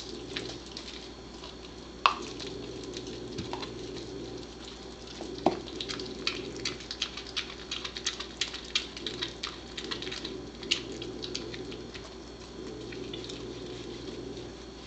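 A Pembroke Welsh Corgi gnawing and tearing raw meat off a buffalo rib bone: a run of wet clicks and snaps of teeth on meat and bone. The clicks come thickest from about six to eleven seconds in, and there is a single sharper snap about two seconds in.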